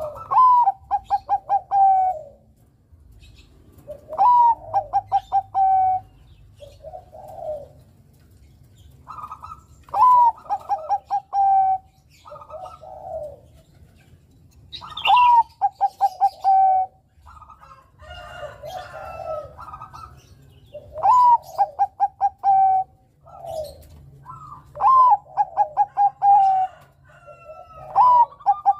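Bangkok perkutut (Thai-bred zebra dove) singing its cooing song. Each phrase is a rising note, a quick run of stuttering notes and a long held coo, and the phrase repeats every few seconds, about seven times.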